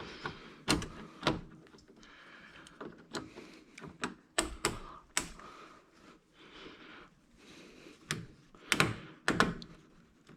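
Irregular metal clicks and knocks of pliers and a spring hose clamp being handled around a rubber radiator hose, with light rustling between them.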